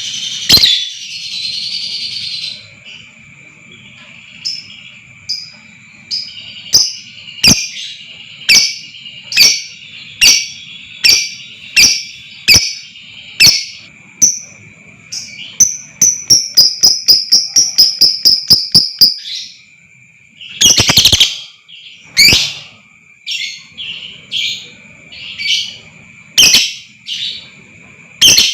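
Lovebird calling loudly in sharp, shrill chirps, repeated about every second. A little past the middle the calls speed into a fast chattering run of about five a second, followed by a couple of harsh bursts and more spaced chirps.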